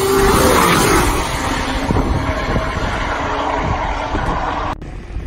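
Porsche 987.2 Cayman race car's flat-six driving past on a wet track, its engine note falling in pitch as it goes by, with tyres hissing through standing water. The car is loudest about half a second in, then fades into a steady spray hiss, with wind buffeting the microphone. The sound cuts off abruptly near the end.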